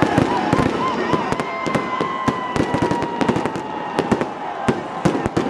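Aerial fireworks going off in a rapid, irregular run of cracks and bangs. A thin whistling tone slides slowly lower over the first few seconds.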